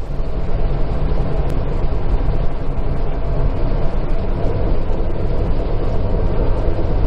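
Pontiac 400 V8 of a 1976 Firebird Formula running steadily, a loud, even low rumble.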